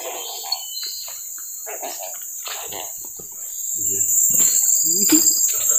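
Chorus of insects, a steady high-pitched drone that swells louder about three and a half seconds in.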